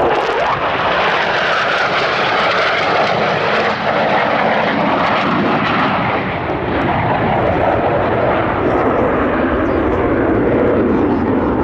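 Fighter jet's engine heard from the ground during a display flight: a loud, steady rushing jet noise that swells at the start and holds without a clear rise or fall.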